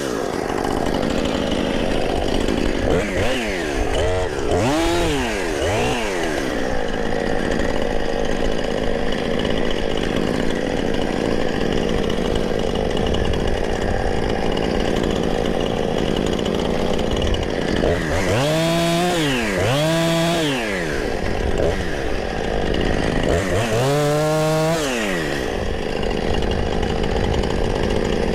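Chainsaw running and cutting through small tree trunks, with its engine revving up and back down three times: a few seconds in, again about two-thirds through, and shortly after.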